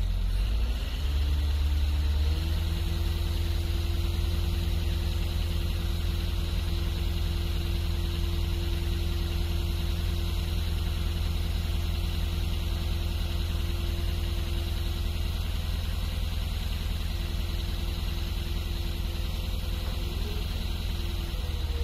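Scania V8 diesel engine of a hooklift truck running at raised revs to drive the hooklift hydraulics as the arm lifts a container. The revs climb over the first couple of seconds, hold steady, and change again near the end.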